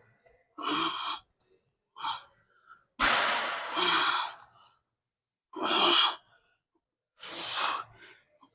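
A person exhaling hard in short breathy bursts, about five in a row roughly every second and a half, the effort breathing of someone working through reps of a weightlifting set.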